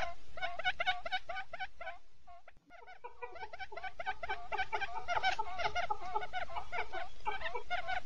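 Quail decoy call: a rapid chattering run of short, repeated pitched notes, several a second. The calls fade out about two and a half seconds in, cut out for a moment, then start again and carry on.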